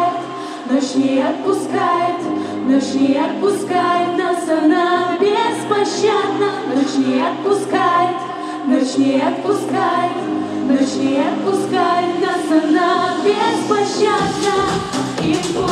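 Female vocalists singing a pop song into microphones over a backing track. A deep bass line comes in near the end.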